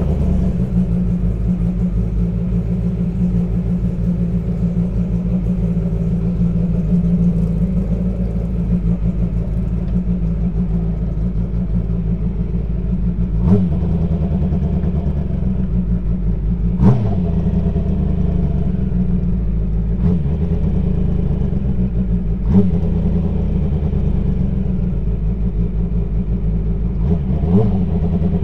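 Kawasaki ZX-10R inline-four motorcycle engine in a formula race car, idling steadily while it warms up from cold. A few short sharp clicks or clunks stand out over the idle.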